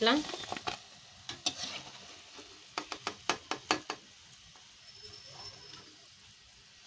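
Perforated steel skimmer clinking and scraping against a steel kadai while deep-fried cauliflower pieces are scooped out of the hot oil, over a faint sizzle of the oil. The clinks come scattered, with a quick run of them about three seconds in.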